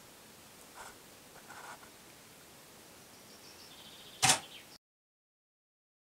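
Faint background hiss with a few faint, brief tones, then a single sharp click a little past four seconds, much louder than the rest. The sound then cuts off completely.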